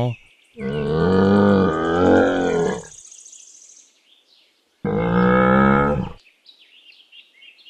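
Camel calling: two long, low, wavering calls, the first about two and a half seconds long and the second about a second and a half, with a short pause between them.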